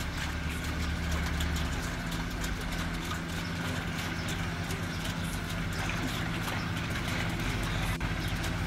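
Steady low hum of a motor running, with scattered faint clicks and crackles over it.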